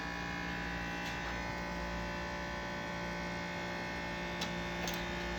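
Steady electrical hum made of several fixed tones, with two or three faint clicks near the end.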